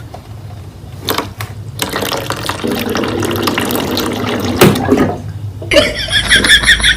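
Running or pouring water, a noisy hiss with scattered clicks from about two seconds in. Near the end it gives way abruptly to a different sound: repeated pitched pulses over a low hum.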